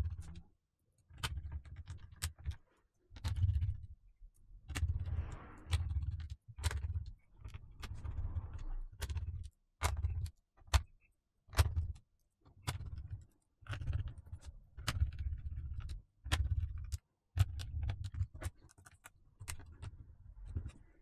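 Laptop being reassembled by hand: plastic case parts and small screws clicking and rattling under a screwdriver in about fifteen short bursts, each with sharp clicks over a low rumble, broken by brief silences.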